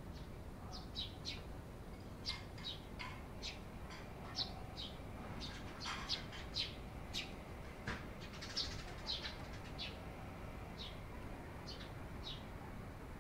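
Eurasian tree sparrows chirping: short, separate chirps at irregular intervals, roughly two a second.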